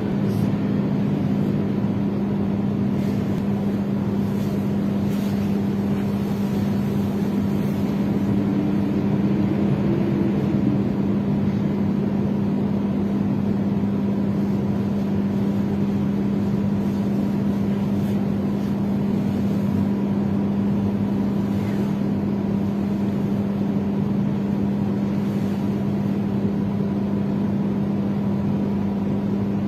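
Split air conditioner running: a steady, even low hum at one pitch with a faint steady high tone above it.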